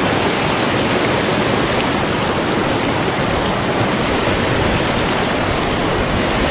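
Creek water rushing steadily over rocks, a loud even hiss with no breaks.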